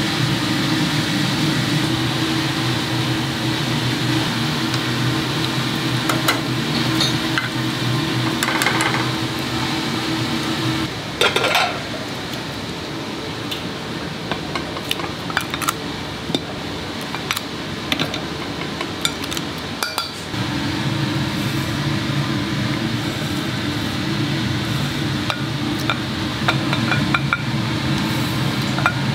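Kitchen clatter of dishes, pots and metal utensils clinking and knocking, with a louder clatter about eleven seconds in. Under it runs a steady low hum that drops out for about ten seconds in the middle and then returns.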